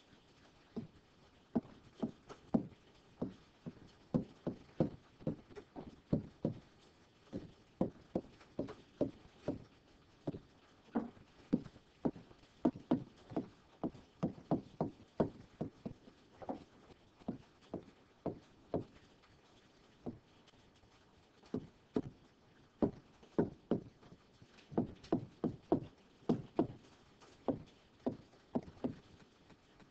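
Stylus tapping on a touchscreen during handwriting: an irregular run of dull taps, a few a second, with a short pause about two-thirds in.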